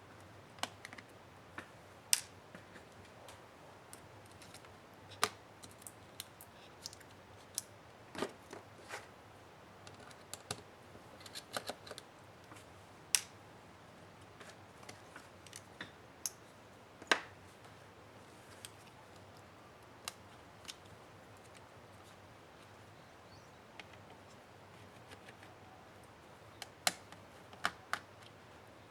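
Irregular small clicks and taps of tools and parts handled while taking a laptop's bottom case apart, some in quick clusters, over quiet room noise.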